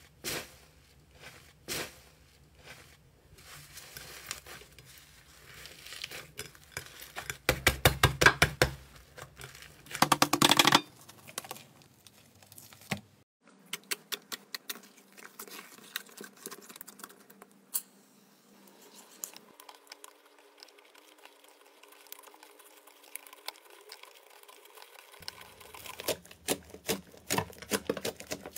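Hands pulling apart, stroking and poking foamy slime, with sharp crackling and popping clicks. The clicks come in loud dense runs about a third of the way in and turn quick and dense again near the end.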